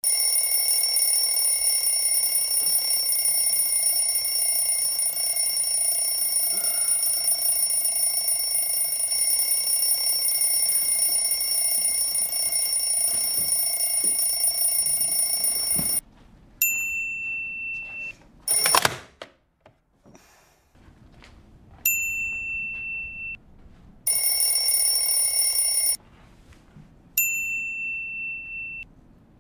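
A continuous high ringing that stops abruptly about sixteen seconds in and comes back for a few seconds later. Three bright single-note chimes, each dying away over a second or so, mark the ticking of bucket-list boxes, with a short whoosh between the first two.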